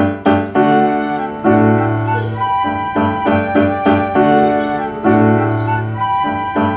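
Background music: a calm instrumental piano piece, with notes struck in a steady, unhurried rhythm over low bass notes.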